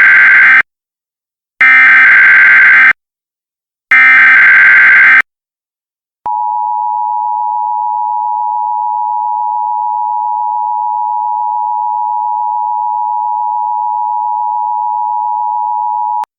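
Emergency Alert System SAME header: three harsh, buzzing bursts of digital data tone, the first already under way. After a short gap comes the EAS two-tone attention signal, a steady dual tone held for about ten seconds that cuts off shortly before the end.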